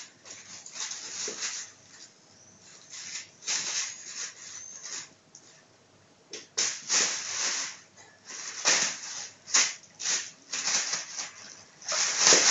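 Plastic bag crinkling and rustling in irregular bursts as a kitten plays with it, the loudest burst near the end.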